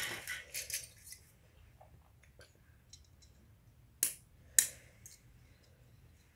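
Two sharp snips about half a second apart, with a few faint clicks around them: plastic model-kit parts being cut off the runner with hand nippers.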